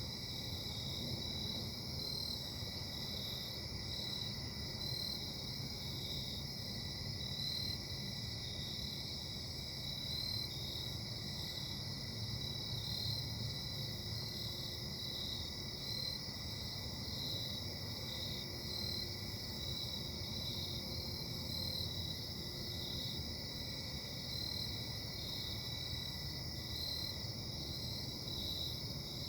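Distant casting-plant machinery running with a steady low drone and a thin steady high whine, which the owner puts down to bad bearings, under crickets chirping at an even pulse.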